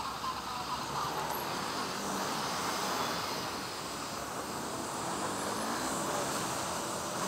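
Steady rush of wind and city traffic noise heard from a moving bicycle, with faint engine tones from nearby vehicles.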